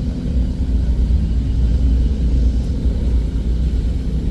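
Car engine and road noise while driving: a steady low rumble.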